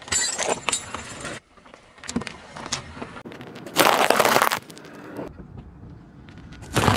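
A car tyre rolling onto a toy jingle-bell bracelet, its metal bells jangling and the plastic crackling. About four seconds in there is a loud crunch as the tyre crushes hard candy canes, and another short crunch right at the end.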